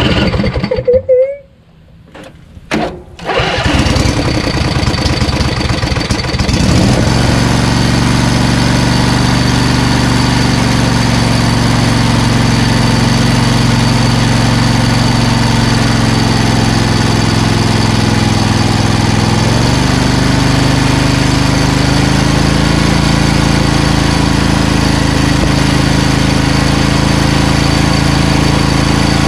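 Repowered lawn tractor's Briggs & Stratton 20 hp V-twin engine starting: a few seconds of broken cranking, then it catches about three seconds in and runs steadily while the tractor drives off. Its pitch rises a little about twenty seconds in.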